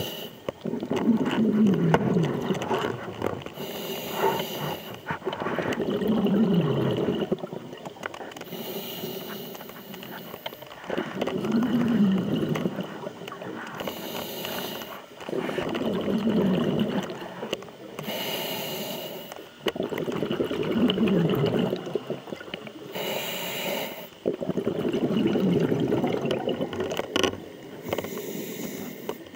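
Scuba diver breathing through a regulator underwater, about six breaths, one every four to five seconds. Each breath is a short hiss on the inhale and then a longer gurgle of exhaled bubbles.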